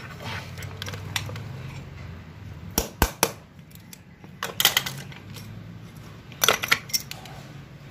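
Sharp metallic clicks and clinks of a pick tool against a steel automatic-transmission clutch piston as its seal is worked off, coming in a few short clusters over a steady low hum.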